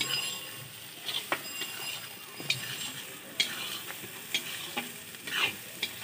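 Metal spatula scraping and knocking around a large metal kadai while thick spice masala sizzles in hot oil, the strokes irregular, about one a second.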